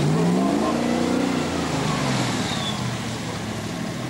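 Off-road 4x4's engine revving under load, rising in pitch for about the first second and then falling away as the throttle eases.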